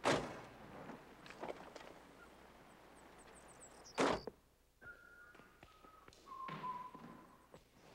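Car door sounds from a convertible: a thud at the start, then a sharp slam with a short ring about four seconds in. Then a few soft footsteps on a hard floor, with faint held musical notes.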